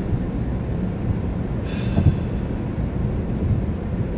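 Steady low rumble heard inside a car's cabin, from the engine and road, with a brief hiss about two seconds in.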